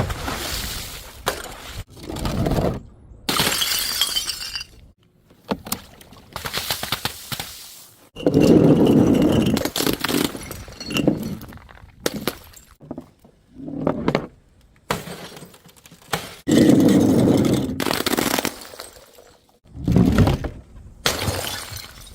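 Glass bottles smashing one after another, about a dozen separate crashes with shattering, crunching and tinkling of shards, each cut off short. A few of the crashes are heavier, with a low thud and a longer crunch.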